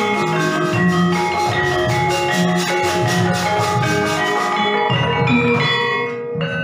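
Gamelan ensemble playing, with metallophones struck in a busy run of ringing, bell-like notes over lower tones. The music thins briefly near the end before new strikes come in.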